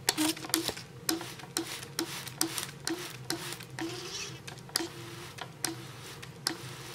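Compost in cardboard toilet roll tubes being watered, with sharp regular clicks about twice a second over a faint steady hum.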